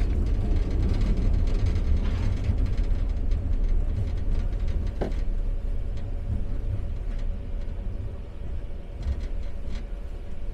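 Expo Line SkyTrain running noise: a steady low rumble that slowly eases as the train pulls into a station. There is a short squeak about halfway through, then a faint steady hum.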